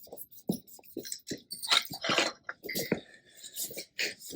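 Irregular short clicks, taps and soft squishing scrapes of hand work with stone veneer and adhesive, a few strokes a second.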